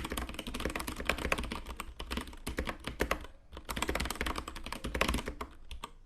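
Rapid typing on a Velocifire TKL02 tenkeyless mechanical keyboard with TTCK brown tactile switches and ABS double-shot keycaps: a dense, uneven stream of key clacks, with a short pause about three and a half seconds in.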